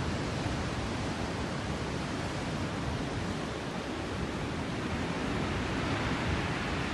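Rough sea surf breaking on a rocky shore below: a steady rushing noise with no separate wave crashes standing out.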